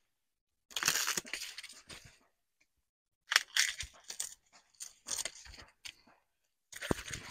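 Dry sugarcane leaves and stalks rustling and crackling in four separate bursts as a cane stalk is pulled down and broken by hand.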